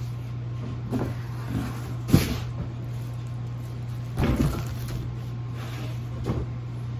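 Plastic packaging and a cardboard box being handled: several short knocks and rustles, the sharpest about two seconds in and another cluster a little past the middle, over a steady low hum.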